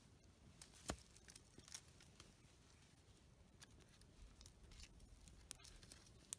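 Faint, scattered crackles and clicks from a small campfire as sticks are fed into it, the sharpest about a second in.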